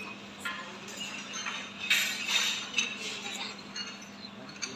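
Scattered light clinks and taps, like cups and dishes in a café, several a second around the middle, the loudest about two seconds in, over a steady low hum.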